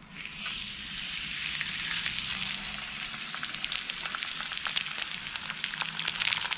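A whole marinated black spot tuskfish sizzling as it is laid on the oiled, very hot flat plate of a gas barbecue. The hiss starts as the fish goes down and builds over the first two seconds, then holds steady, dotted with crackling pops of spitting oil.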